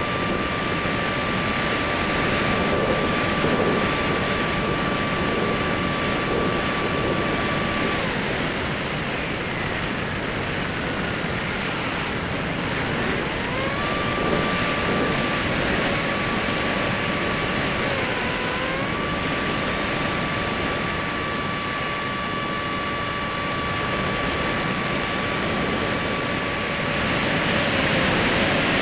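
Electric motor and propeller of a Skysurfer (Bixler) foam RC plane, a steady whine over heavy wind rush. The motor cuts out about eight seconds in, leaving only the wind noise of gliding, then spools back up about five seconds later, dips briefly, and runs on steadily.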